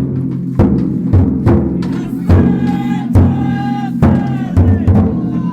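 Large festival taiko drum on a taikodai float beaten in a steady beat, about two strokes a second, each stroke ringing low. Voices call out over the drumming about midway.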